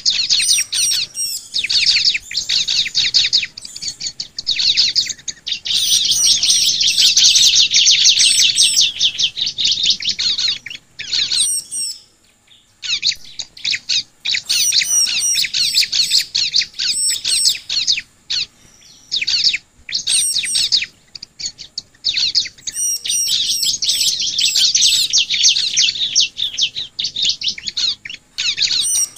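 Bar-winged prinias (ciblek) singing: rapid, high chattering chirps in long dense bursts, with a short lull about twelve seconds in.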